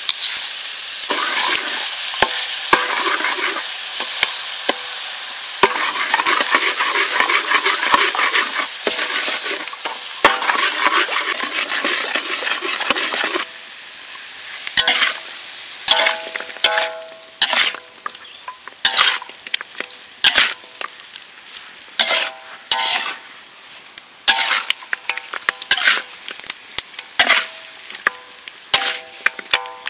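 Pork ribs sizzling loudly in a metal wok as dark sauce is poured into the hot fat. About thirteen seconds in the sizzle drops, and a spatula scrapes and clacks against the wok over and over as the ribs are stirred, some strikes ringing briefly.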